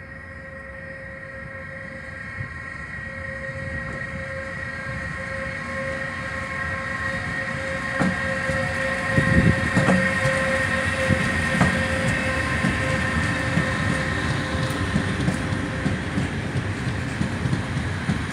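Pesa Gama electric locomotive approaching and passing with a steady whine in several tones that grows louder. About eight to twelve seconds in, its wheels knock sharply over rail joints, and a long train of cement hopper wagons follows with a continuous rumble and clatter of wheels.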